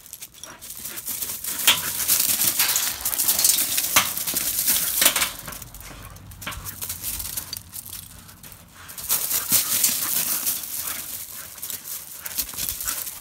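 Two bull terriers play-fighting on gravel: their paws scuffle and crunch the stones in two loud spells, the first in the opening seconds and the second about nine seconds in.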